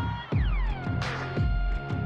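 Electronic background music with heavy bass hits and a synth note that slides down in pitch, then holds.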